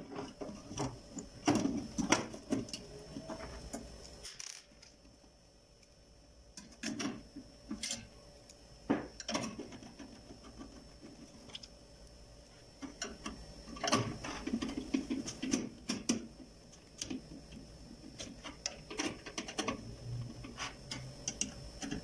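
Irregular clicks, scrapes and knocks of a screwdriver and hands working on screws and parts inside an opened microwave oven's metal chassis, coming in bursts a few seconds apart.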